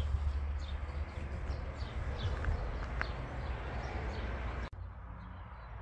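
Small birds chirping in short, repeated falling notes over a steady low rumble of wind on the microphone. The sound changes abruptly about four and a half seconds in, where the chirping stops and only the rumble goes on.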